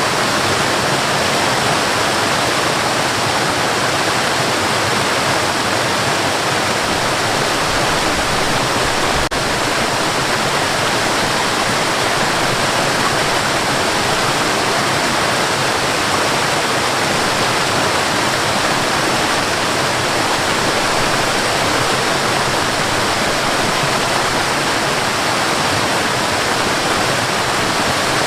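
Waterfall: a steady, loud rush of falling water, unchanging throughout.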